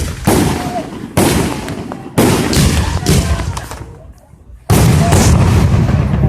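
Fireworks going off: three sharp bangs about a second apart, each dying away, then after a brief lull a louder spell of explosions lasting about two seconds.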